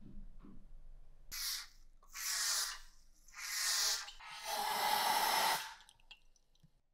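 Aerosol spray can hissing in four short bursts as it is sprayed into a rifle part; the last burst is the longest.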